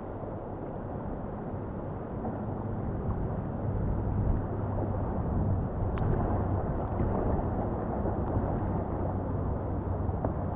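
Steady rushing of whitewater river rapids, growing a little louder about four seconds in, with a single sharp tick about six seconds in.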